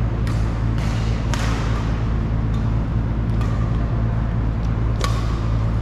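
Sharp cracks of badminton rackets hitting shuttlecocks, about six at irregular intervals, over a loud steady low hum.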